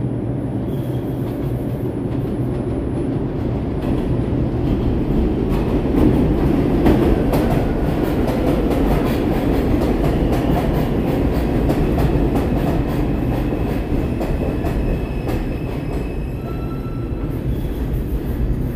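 New York City Subway ② train pulling into an elevated station: a rumble that builds as the cars come alongside, with a dense clatter of wheel clicks over the rail joints. The clicks thin out as the train brakes to a stop, with a faint high whine near the end.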